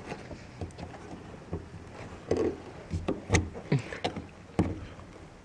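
Hands working wiring connectors loose at a car's fuel pump access opening: scattered plastic clicks, knocks and rustling, the sharpest clicks about three and a half and four and a half seconds in.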